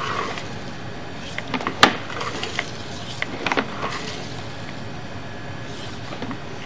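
Handling noise from a sewer inspection camera's push cable being fed down the drain line: a few sharp clicks and knocks, the loudest about two seconds in, over a steady background hum.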